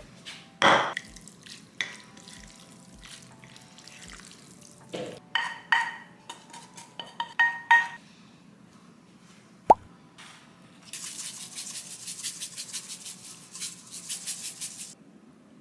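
Chopsticks and food clinking against a ceramic bowl, several short ringing clinks, then a sesame-seed shaker rattling rapidly for about four seconds as seeds are shaken over the dish. Soft background music underneath.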